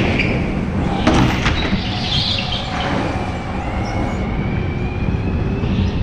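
Indoor rental go-kart's engine running under throttle, heard from on board, with short tyre squeals as the kart slides through corners on the smooth concrete floor. There is a sharp knock about a second in.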